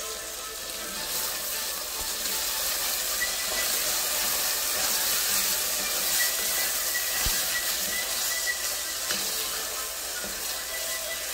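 Onions, garlic and ají chili paste sizzling in hot oil in an enameled cast-iron pot as a sofrito fries down, stirred with a wooden spoon. A steady hiss that swells a little in the middle.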